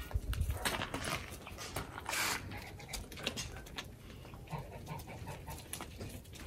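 Rams moving about the farmyard: shuffling steps, with two short breathy bursts, one about a second in and one a little after two seconds.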